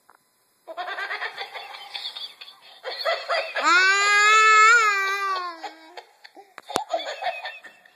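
Toddler laughing hard: quick bursts of giggles, then a long high-pitched squeal of laughter lasting about two seconds in the middle, then more giggling near the end.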